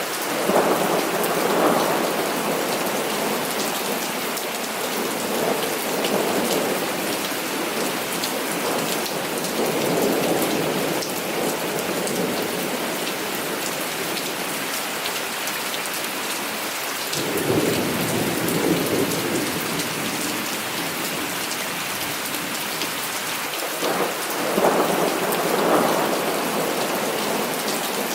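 Heavy rain falling steadily, with rolls of thunder rumbling through it: one at the start, several weaker ones, and stronger ones about two-thirds in and near the end.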